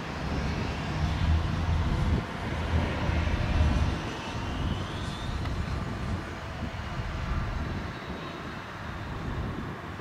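Twin Rolls-Royce AE 3007 turbofans of a Cessna Citation X business jet during the landing rollout. A loud low rumble in the first few seconds, then a whine rising in pitch around the middle, fading as the jet moves away down the runway.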